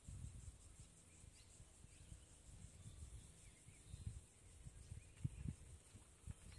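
Near silence of quiet rural surroundings: faint bird chirps, a steady high insect drone and a low rumble, with two soft knocks about five seconds in.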